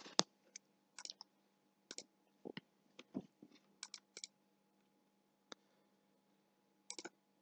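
Faint computer mouse clicks, about a dozen scattered irregularly, over a faint steady low hum.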